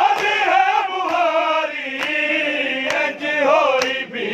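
A group of men chanting a Punjabi noha in unison, with sharp slaps of hands on chests (matam) landing on the beat about once a second.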